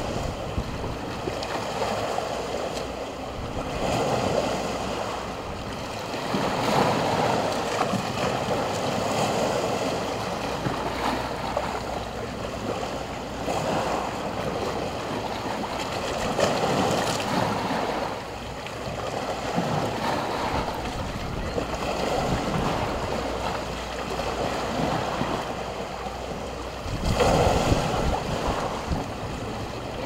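Small sea waves lapping and washing against a stone beach, swelling and falling back every few seconds, with the biggest surge near the end.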